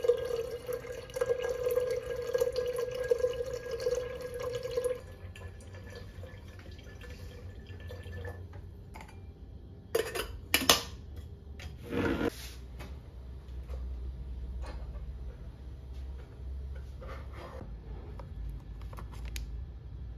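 Water running from a manual, non-electric water dispenser into a kettle, a steady ringing fill tone that stops about five seconds in. A few sharp knocks follow a few seconds later.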